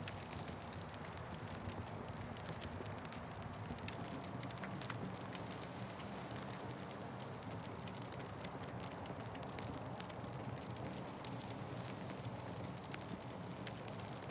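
Wood fire burning, with frequent small crackles and pops over a steady low rumble.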